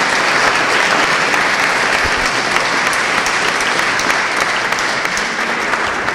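Audience applauding, dense and even, easing off near the end.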